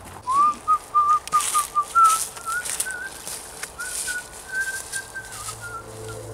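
A person whistling a casual tune in short, wavering notes, alongside the swishing footsteps of someone walking through forest undergrowth.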